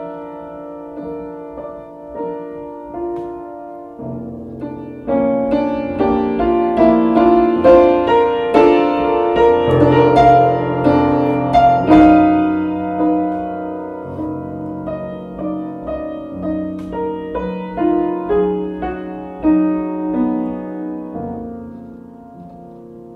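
Solo piano music, with lower bass notes joining about four seconds in, swelling to its loudest around the middle and growing softer toward the end.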